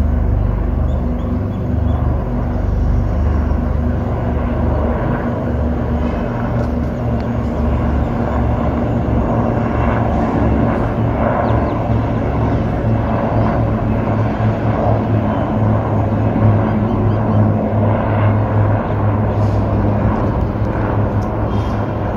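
A formation of four helicopters flying overhead, rotors and engines running in a steady, loud, low sound.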